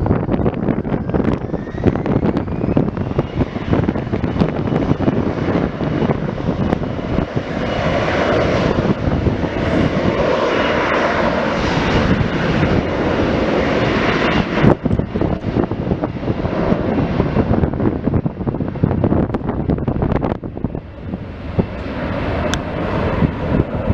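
An airliner's engines, a dense rushing noise with a whine that climbs in pitch in the first few seconds. It grows loudest about a third of the way in and drops back suddenly a little past halfway.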